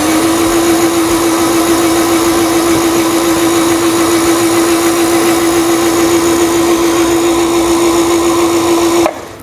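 Singer sewing machine's motor running at steady high speed, winding thread onto a bobbin on the bobbin winding spindle: an even whine that stops suddenly near the end when the foot control is released.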